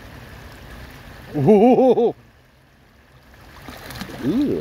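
A person's loud startled cry, breaking into four quick rises and falls in pitch about a second and a half in, the reaction to a northern water snake striking at a reaching hand; a short 'ooh' follows near the end, over a low wash of lapping water.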